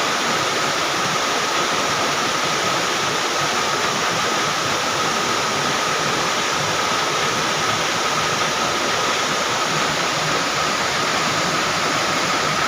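A river in flood rushing steadily: a loud, even roar of fast-moving water, with a faint thin steady tone above it.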